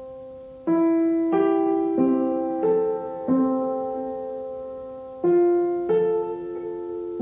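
Background piano music: a slow, gentle melody of struck notes and chords about two-thirds of a second apart, each ringing and fading, with one longer held note midway.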